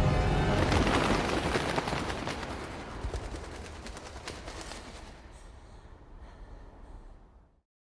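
Film sound effect of a crash dying away: dense crackling noise full of small clicks, fading steadily and cutting off to silence about seven and a half seconds in.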